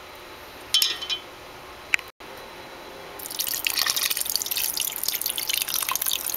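A short sharp hiss-like sound about a second in and a click a second later. Then, from about three seconds in, a steady stream of clear liquid poured into the broth of a stainless steel pot, splashing continuously.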